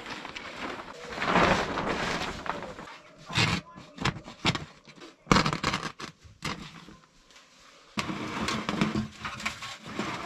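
A plastic tarp rustling and crinkling as it is handled over a pole roof, with several sharp knocks and scrapes between about three and five seconds in and a quieter stretch after that.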